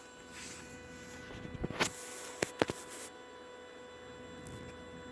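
A parked 2016 Tesla Model X, unplugged and switched off, gives off a steady electrical buzz: one even tone with overtones. The owner cannot explain it, and it seems to come from between the front wheels. A few sharp clicks sound about two seconds in.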